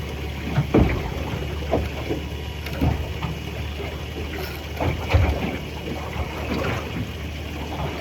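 Wind buffeting the microphone and water slapping against a small boat's hull, under a steady low rumble, with several dull knocks and thumps at uneven intervals.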